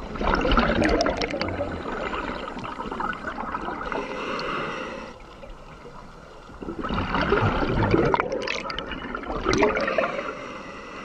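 Scuba regulator exhaust bubbles gurgling past the microphone as the diver breathes out through an Aqualung Titan regulator. There are two long exhalations, one at the start and one from about seven seconds in, with a softer hiss and then a lull between them.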